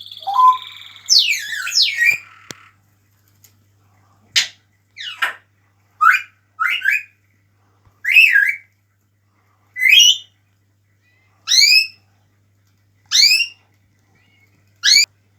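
African grey parrot whistling: a warbling gliding call at the start, then a run of short upward-sweeping whistles, one every one to two seconds.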